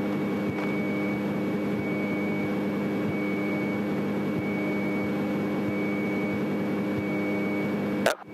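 Single-engine propeller airplane's piston engine and propeller droning steadily at low taxi power, heard from inside the cabin while the plane rolls on the ground. The drone cuts off abruptly near the end.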